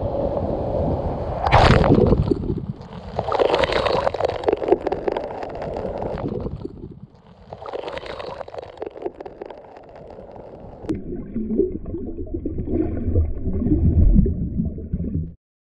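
Seawater sloshing and gurgling around the camera in uneven surges. In the last few seconds it turns dull and muffled as the camera is under water, then cuts off just before the end.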